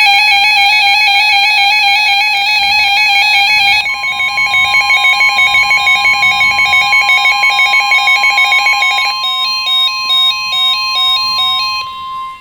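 Emergency Alert System attention tones announcing a severe thunderstorm warning. A loud, steady electronic tone holds for about four seconds, then gives way to another steady tone with a pulsing electronic pattern over it. About nine seconds in, the pattern turns into a stepping run of notes.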